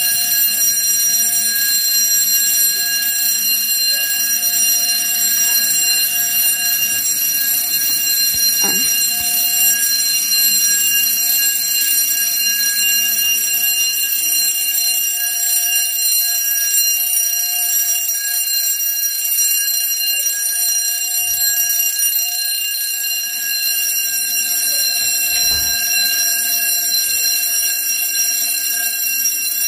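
Fire alarm bell ringing continuously, a steady unbroken ring at constant loudness.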